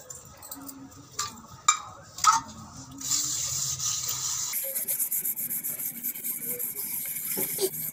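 A bare hand scrubbing coarse salt over a copper plate, a steady gritty rubbing that starts about three seconds in. Before it come a few sharp clinks.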